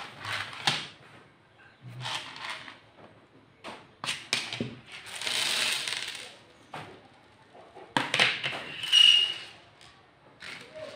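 Small plastic chess pieces clattering on a hard tabletop in several short bursts, with a longer rattling rush as they pour out of their box. A folding plastic chessboard is handled and set down among them.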